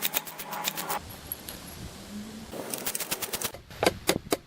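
Ratchet wrench clicking in quick runs of about seven clicks a second as the exhaust header bolts of a Honda NC700 are loosened. The clicking stops for about a second and a half, starts again, then slows to a few single clicks near the end.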